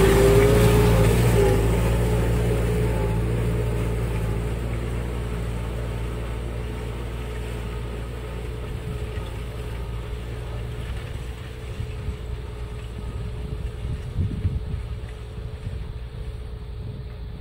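Kubota M7060 tractor's four-cylinder diesel engine running steadily, fading over the first several seconds as it moves away. After that a faint engine hum stays under low wind rumble on the microphone, with a few gusts near the end.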